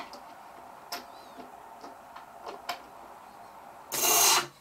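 Micronics Caslon 700W power supply fan running with a steady whir, fast for the light load it is under, with a few light clicks as a screwdriver is worked into its grille. About four seconds in comes a loud, brief scraping clatter as the screwdriver catches the spinning blades, and the whir drops away as the fan stops.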